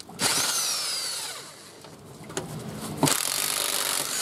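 Hand-held power tool running at a car wheel's lug nuts during a flat-tire change. It runs twice: first with a falling whine that fades out, then again from about three seconds in.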